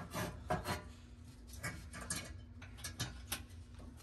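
Irregular small metallic clicks and scrapes as a mounting screw for a new bake element is fitted by hand into the back wall of a Whirlpool range's oven cavity.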